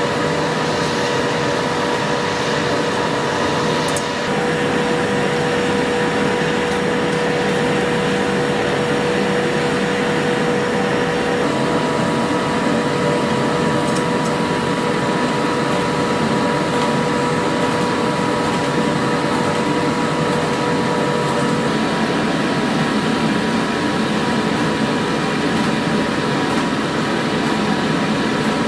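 Steady machine drone: an even hiss with a constant hum running through it. There is no hammering. The lower hum tone drops out about three quarters of the way through.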